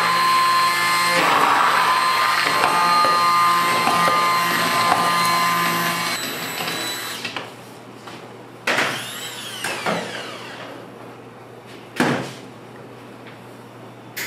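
Small electric kitchen motor, a hand blender or mixer, running steadily with a whine for about seven seconds, then switched off. A few short handling knocks follow, the sharpest near the end.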